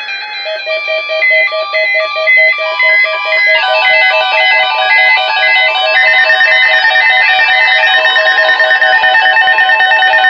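Instrumental music with a fast, evenly repeating note pattern; it grows fuller about three and a half seconds in.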